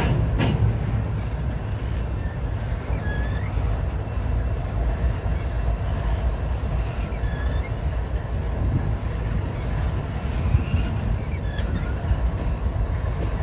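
Double-stack intermodal freight train rolling past on its well cars: a steady low rumble of wheels on rail, with a sharp knock about half a second in and short wheel squeals every few seconds.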